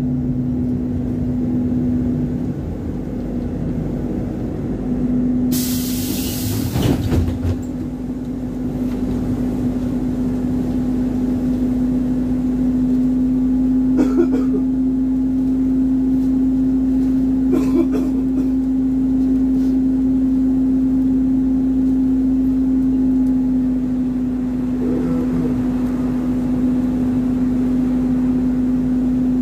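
Inside a ZiU-682G trolleybus: its electrical equipment gives a steady hum throughout. About six seconds in comes a loud hiss of air from its pneumatics lasting about two seconds, and later there are two short clicks.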